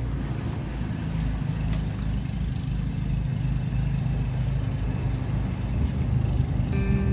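Small boat's outboard motor running steadily, a low hum.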